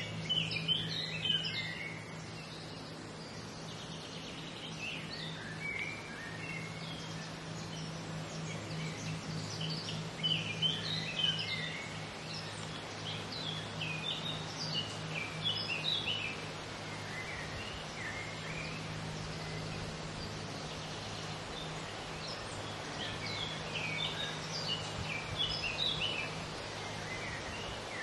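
Woodland songbirds singing in several bouts of short, quick high notes over a steady low hum.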